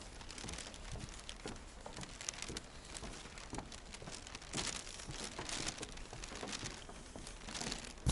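Rustling and crackling handling noise from a handheld camera's microphone rubbing against a jacket while the camera is carried on a walk. The noise is irregular, with louder swells about halfway through and near the end.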